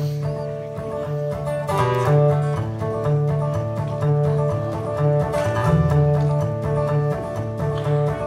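Acoustic guitar played solo at a brisk tempo, strummed chords over bass notes that alternate in a steady country rhythm.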